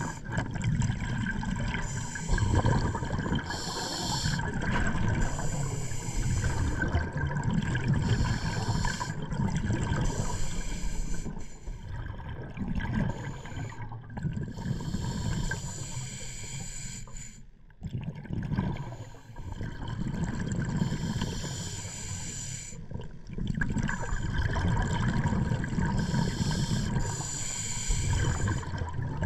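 Scuba diver breathing underwater through a regulator, with bubbles rushing out every few seconds as each breath is let out.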